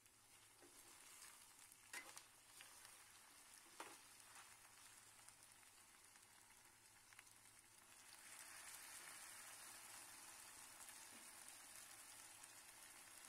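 Meat and potato curry sizzling faintly in a nonstick wok, with a metal ladle stirring and clinking against the pan twice in the first few seconds. The sizzling grows louder about eight seconds in.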